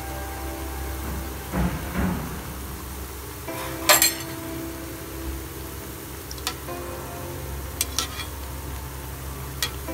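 Moong dal pakoras deep-frying in hot oil in a kadhai, sizzling steadily. Two dull knocks come just before two seconds in, then a sharp clink about four seconds in and a few lighter clinks near the end as a slotted steel skimmer works in the pan.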